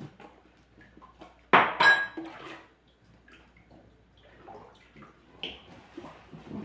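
Dishes and cutlery clinking and knocking in a kitchen sink as they are washed by hand. A loud ringing clatter comes about one and a half seconds in.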